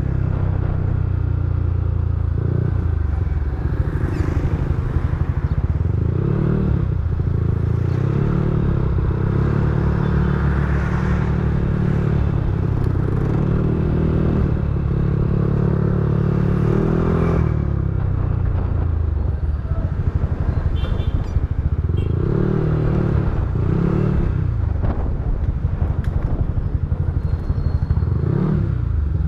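Yamaha NMAX V3 scooter's single-cylinder engine running through a TSMP 2.5 aftermarket exhaust, idling steadily and revved up and back down in short blips several times.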